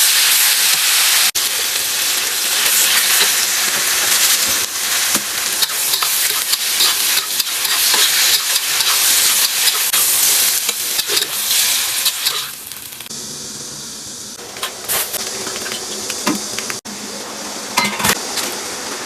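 Food frying loudly in a hot pan, a dense sizzle with the scrape and clack of a utensil stirring it. About 13 seconds in the sizzle falls away, leaving scattered scrapes and clicks.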